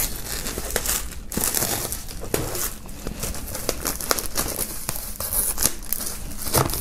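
Clear plastic shrink-wrap being pulled and torn off a record sleeve, crinkling and crackling in quick irregular clicks throughout.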